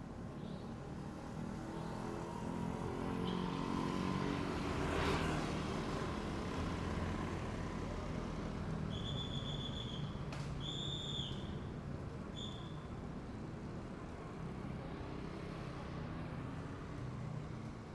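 Road traffic passing, with engines and tyres rising to a peak as one vehicle goes by close about five seconds in, then fading to a steady rumble. Around the middle come three short, high-pitched whistle-like tones, the second the longest, with a sharp click just before it.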